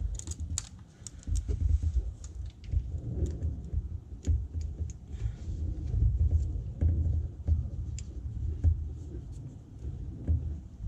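Hands pulling a small bulb out of a plastic turn signal socket: scattered small clicks and rattles over an uneven low rumble of handling noise.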